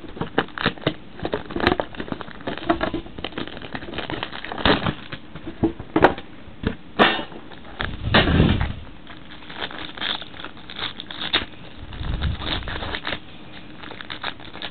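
Plastic wrapping and cardboard packaging of a trading-card box crinkling and crackling as the box is torn open and the pack unwrapped by hand, a dense run of sharp crackles and clicks. Heavier handling noise comes about eight seconds in and again around twelve seconds.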